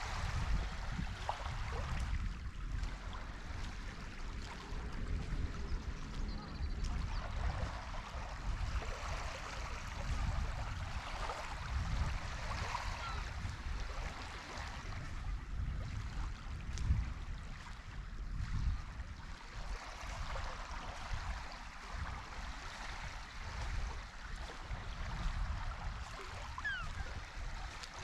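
Wind buffeting the microphone as a fluctuating low rumble over gently lapping sea water, with a few short bird chirps near the end.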